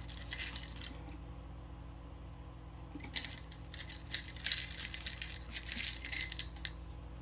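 Loose beads and small jewelry pieces clinking and rattling against each other as they are handled and sorted, in a short spell at the start and a longer one from about three seconds in until near the end.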